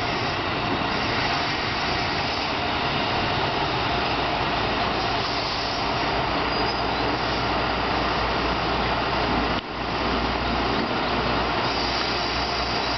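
A two-car KiHa 125 diesel railcar rolls to a halt at the platform and stands with its diesel engine running, a steady noise over a low rumble. The sound dips briefly about ten seconds in.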